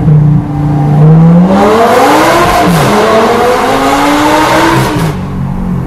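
Lamborghini Gallardo LP560-4's V10 through an Armytrix aftermarket exhaust, accelerating hard. It holds steady for about a second, then the revs climb, dip once at an upshift midway, climb again, and fall away near the end as the throttle lifts.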